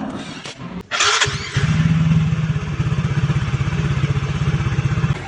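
Yamaha automatic scooter engine started about a second in, then idling with an even, rapid pulsing beat.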